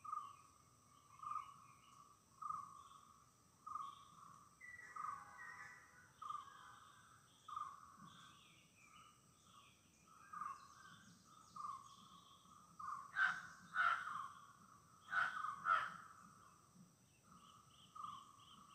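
Forest dawn chorus: a bird repeats a single short note about once a second, other birds chirp higher up, and two loud harsh calls come about two-thirds of the way through, all over a steady high-pitched insect drone.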